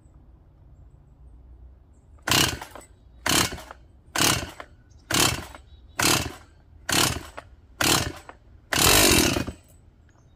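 STIHL MS180 chainsaw, fitted with a Chinese aftermarket replacement two-stroke engine, being pull-started by its recoil starter cord on a first start attempt after the engine swap. There are seven quick pulls about a second apart, each a short cranking rasp, then a longer eighth pull near the end, and the engine does not keep running.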